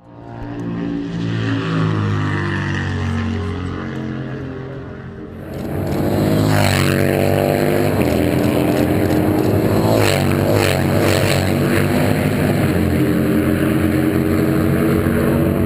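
Harley-Davidson XR1200 race motorcycles' V-twin engines running hard around the circuit, their pitch stepping up and down with gear changes and throttle. About five seconds in the sound gets louder and a steady hiss joins it.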